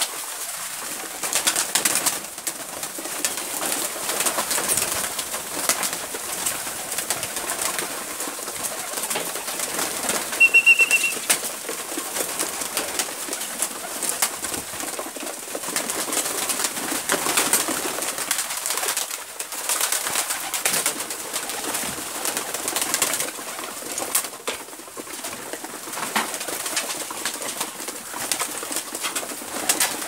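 A large flock of pigeons feeding at troughs, cooing, with wings flapping and many small clicks and rustles. A short high note sounds once about ten seconds in.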